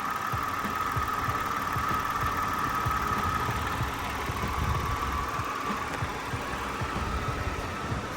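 A vehicle engine idling, with a steady whine that fades about six seconds in, over low, uneven thumping.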